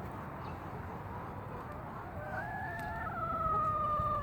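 A rooster crowing once: a drawn-out call of about two seconds that begins about halfway through and drops in pitch partway.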